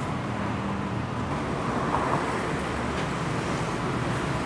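Steady traffic noise of a city street: an even, low rumble of road vehicles.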